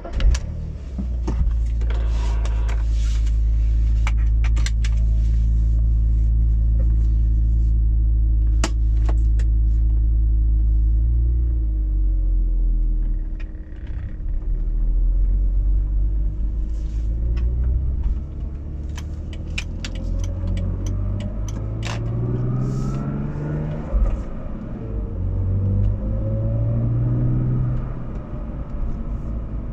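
BMW Z4 starting up and idling steadily, then pulling away slowly, with a hum that rises in pitch as it gathers speed several times in the second half. This is the rear-end humming under low-speed acceleration whose cause the owner does not know.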